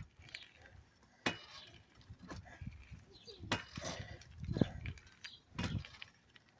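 Irregular clinks and knocks of objects being handled, about five sharp ones spaced roughly a second apart, with fainter rustling between.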